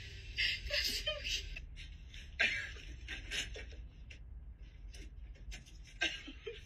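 A person's soft, breathy laughter in short irregular bursts, like stifled snickering.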